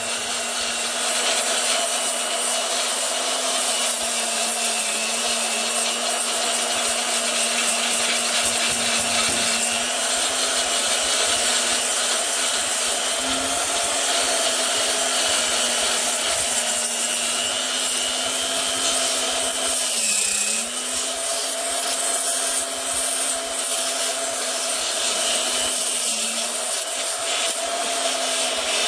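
Angle grinder running steadily against metal, cleaning the bilge plate back to bare metal as preparation for welding. Its motor note sags briefly about two-thirds of the way through.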